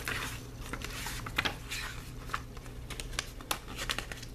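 Pages of a tarot deck's paperback guidebook being leafed through by hand: a run of quick, papery flicks and rustles, one after another.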